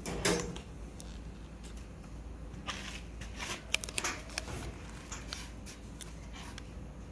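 Scattered crinkling rustles and light clicks of a plastic screen protector film being handled and peeled, with a louder rustle just after the start and a busier stretch in the middle.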